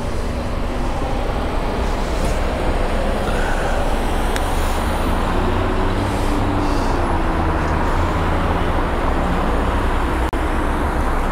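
Busy city road traffic at an intersection: a steady rumble and hiss of cars passing.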